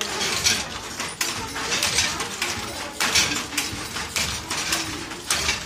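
Wooden handloom in use: repeated sharp wooden knocks and clacks in an uneven rhythm, about one or two a second, as the beater and shuttle are worked.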